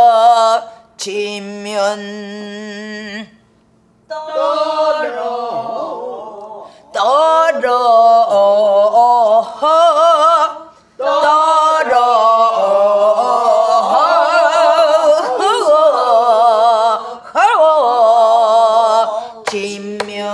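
A woman singing pansori in a full, throaty voice, with long held notes and a wide, wavering vibrato, and a brief pause about three seconds in.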